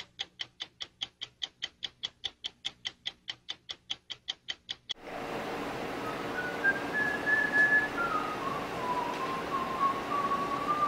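Stopwatch ticking about four times a second, stopping about five seconds in. Then a steady room hum, and a person whistling a wandering tune.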